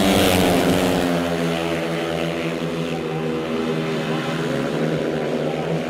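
Speedway motorcycles' 500 cc single-cylinder methanol engines: one bike passes close and loud at the start, its pitch dropping as it goes by, then several engines run on with a steady, even note.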